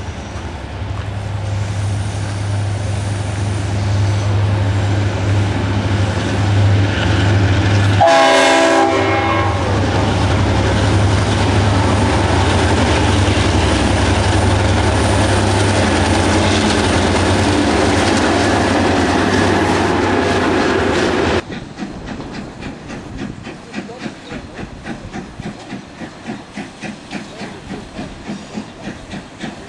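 Freight Australia diesel locomotives passing close by on a goods train, their engines running with a heavy low drone and a brief horn blast about 8 seconds in. After a sudden cut, the Victorian Railways Y-class steam locomotive Y112 working along with a regular chuffing beat.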